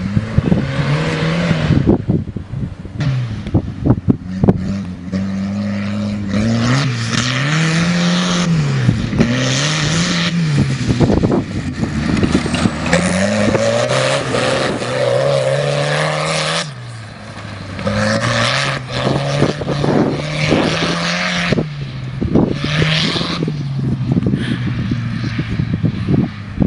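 Turbocharged tractor engine revving hard and easing off again and again, its pitch climbing and falling every couple of seconds, as the tractor spins its rear tyres and churns up the field.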